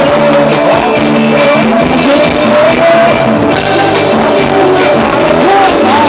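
Thai ramwong band music: a singer's wavering melody over drums and band instruments keeping a steady beat.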